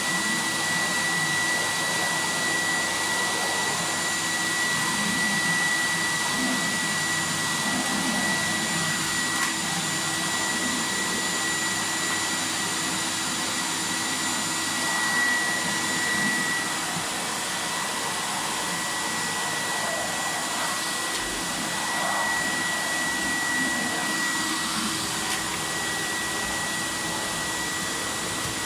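Fagor Electronic 2.350 vacuum cleaner running steadily while vacuuming, a high motor whine over the rush of air.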